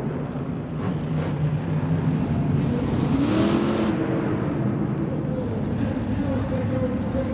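Two 1,500-horsepower monster truck engines racing at full throttle, revving up and down as the trucks jump. One engine note rises about three seconds in.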